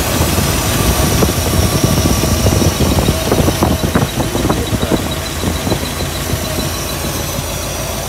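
1958 Cadillac's 365 cubic-inch V8 running just after being fired up for the first time since its water pump was replaced. It runs unevenly for the first few seconds, then settles into a steadier idle.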